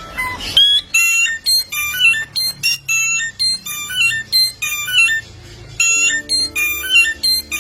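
Songbird singing a fast, varied run of short whistled notes that leap up and down in pitch, odd and electronic-sounding, like an alarm or ringtone.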